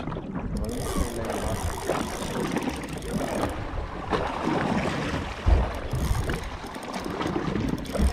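Noise on an open boat at sea: wind and water sounds with handling bumps, and a low thump about five and a half seconds in plus another near the end.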